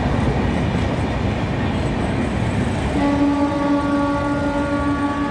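A passenger train running through the station with a steady low rumble. About three seconds in, a locomotive horn sounds one long, steady blast that is still held at the end.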